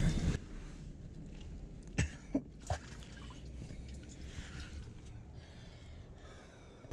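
Faint rustling and handling noise with a few short sharp sounds about two to three seconds in, as a hand reaches into a rock crevice and scoops up water and crude oil from a natural seep.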